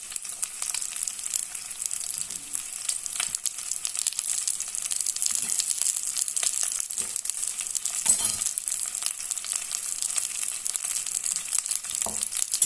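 Beef and whole garlic cloves sizzling in hot olive oil in an enamel cast-iron pan: a steady crackling hiss, with a few brief knocks.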